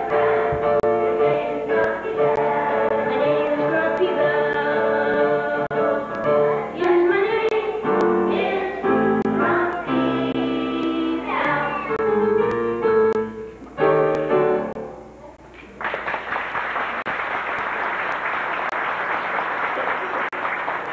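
Children's choir singing a song that ends about three-quarters of the way through, followed by audience applause.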